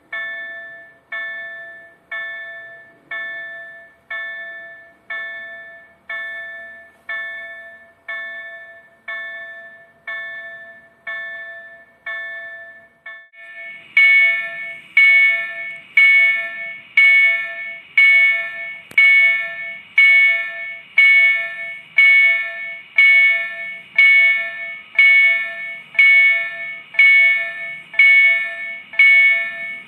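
Automatic level-crossing warning bell striking steadily, about once a second, each strike ringing out and fading before the next; it gets louder about halfway through. It signals that the crossing is closed and a train is approaching.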